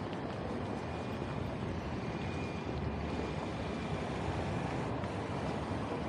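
Steady city street noise of road traffic going by.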